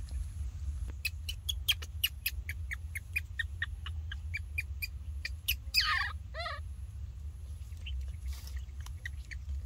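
Baby macaque giving a quick run of short, high squeaks, about five a second, then a louder cry that falls in pitch, and a few short squeals about six seconds in.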